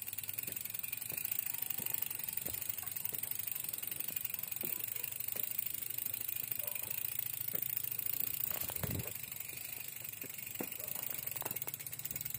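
Mountain bike rolling along a wet concrete path: steady tyre noise with small clicks and rattles from the bike over the bumps, and a louder knock about nine seconds in.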